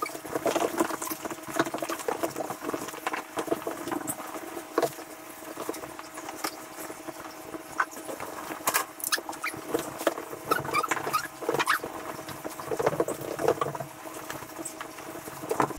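A towel rubbing and rustling over freshly bathed English Springer Spaniel puppies, with scrabbling and light pattering of small claws, and a few short squeaks in the second half.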